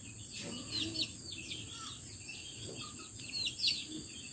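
Chicks peeping: many short, high, downward-sliding peeps, several a second, over a steady high-pitched hiss.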